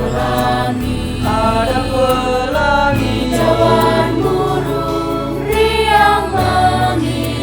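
School choir singing in parts, with sustained notes that change every second or so.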